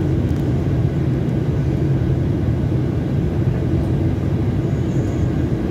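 Steady low drone of engines and rushing air heard inside the cabin of a Ryanair Boeing 737 airliner in flight, descending towards landing.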